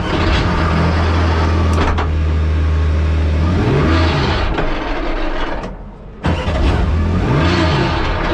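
Porsche 992 GT3 Cup's 4.0-litre flat-six engine running loudly inside the cockpit. It comes in suddenly at the start, with a sharp click about two seconds in. Short throttle blips rise and fall in pitch about four seconds in and again near the end.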